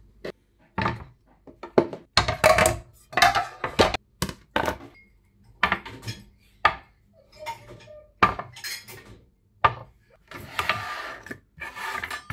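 Plates, a drinking glass and metal and plastic kitchen utensils clattering and clinking as they are unloaded from a dishwasher's cutlery basket and set down on a plastic cutting board. It comes as a string of short clatters with brief silences between them.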